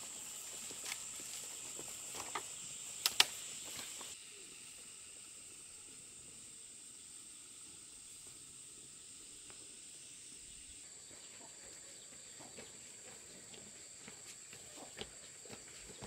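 Steady high-pitched insect drone over quiet countryside, with a couple of sharp clicks about three seconds in and light footstep-like ticks near the end.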